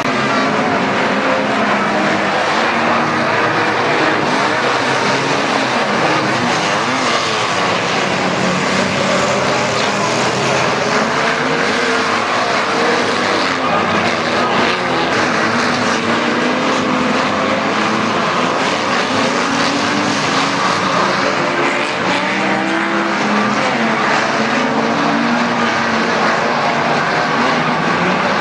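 A pack of unlimited banger race cars running together on the track, many engines revving up and down at once in a steady, loud mix.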